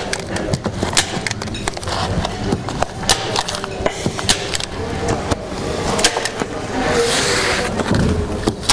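Handling noise from a plastic airtight membrane (Intello Plus) being worked on a timber-framed wall: scattered sharp clicks and knocks, and a burst of rustling and crinkling of the sheet about seven seconds in.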